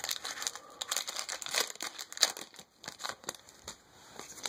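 Foil wrapper of a Pokémon TCG booster pack crinkling as it is handled and torn open by hand: a run of irregular crackles, thinning out near the end.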